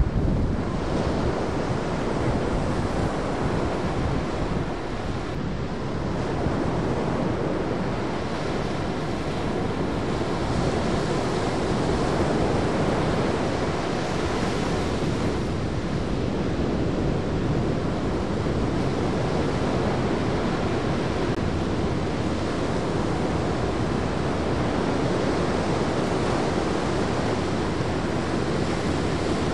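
Ocean surf breaking and washing in a steady rush, with wind on the microphone.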